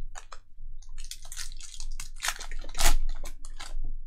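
Foil wrapper of a Topps Merlin Chrome trading card pack crinkling and tearing as it is ripped open by hand: a busy run of crackles and rips, loudest about three seconds in.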